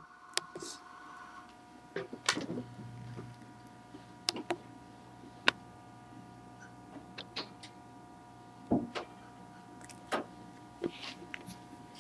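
A dozen or so sharp, irregular clicks and taps, spaced unevenly, over a faint steady high whine.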